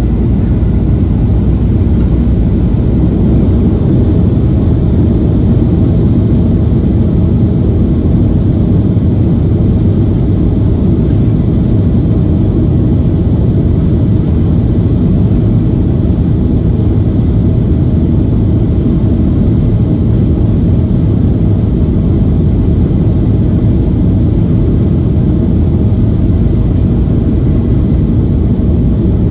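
Boeing 737-800's CFM56 jet engines and the rumble of its wheels on the runway, heard from inside the cabin over the wing: a loud, steady, deep rumble as the airliner rolls along the runway.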